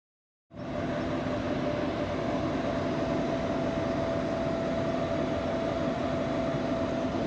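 ST44 (M62-type) diesel locomotive's two-stroke V12 engine running steadily as it hauls a train of loaded open coal wagons past, cutting in suddenly about half a second in. A steady hum with two whining tones sits over the engine noise.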